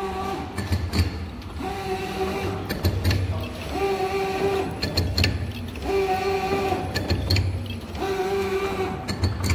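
P160 automatic encrusting machine running, its motors and shaping mechanism working in a steady cycle: a pitched whine comes and goes about every two seconds, alternating with a low rumble, over mechanical clicking and clatter.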